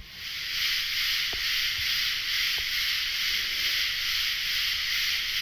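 Recorded call of the common true katydid played back: a steady, hissing insect buzz that starts and cuts off abruptly.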